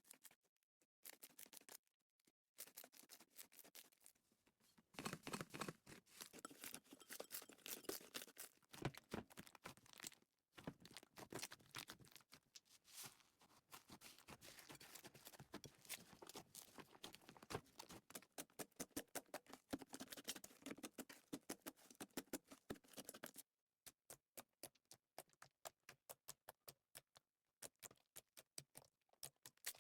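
Slime being handled: squeezed and poked, giving rapid sticky clicks and small pops. The clicks are dense and crackling for most of the stretch, then thin out to separate pops near the end.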